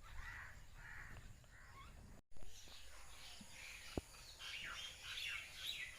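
Crows cawing with smaller birds chirping around them, the chirping growing dense in the second half. The sound breaks off for a moment a little over two seconds in.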